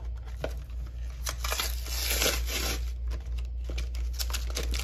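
Pokémon card blister pack being torn open by hand: irregular crinkling and tearing of the plastic and card packaging, heaviest about a second and a half in.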